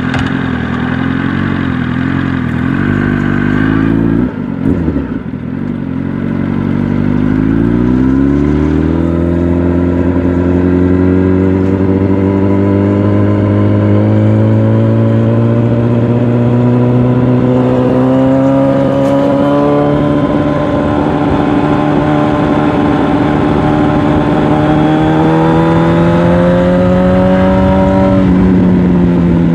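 Yamaha R1's inline-four engine running steadily, breaking off briefly about four seconds in, then rising in pitch as the bike accelerates and climbing slowly for some twenty seconds before the revs drop near the end.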